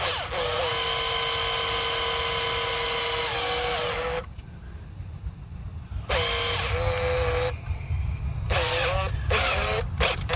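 Cordless drill-driver running in trigger pulls as it drives a fastener: one long run of about three and a half seconds, a shorter one of about a second and a half, then several quick short bursts near the end.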